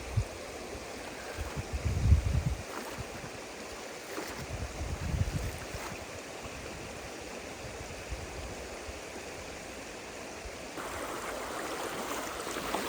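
River water rushing steadily past the bank, with two short low rumbling bumps about 2 and 5 seconds in; the water noise grows louder near the end.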